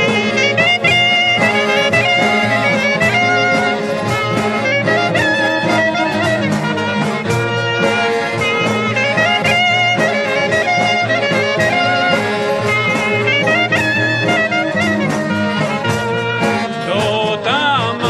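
Albanian folk ensemble playing an instrumental passage: an ornamented wind-instrument melody over accordion chords and a steady drum beat. A new line with wide vibrato comes in near the end.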